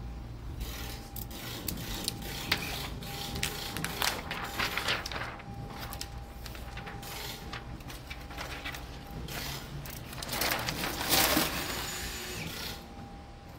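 Plastic window-tint film crackling and rustling as pre-cut pieces are pulled apart and lifted off a glass board: a run of small crackles and clicks, then a longer, louder rustle near the end. A faint steady hum runs underneath.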